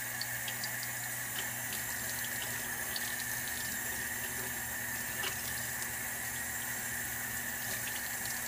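Tap water running steadily into a stainless-steel sink and splashing over a bundle of hair extensions as it is rinsed, with faint scattered splashes and drips.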